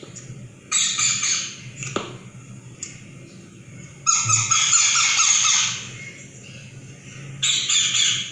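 Baby ring-necked parakeet squawking in three loud bursts: a short one about a second in, a long one of nearly two seconds in the middle, and a short one near the end.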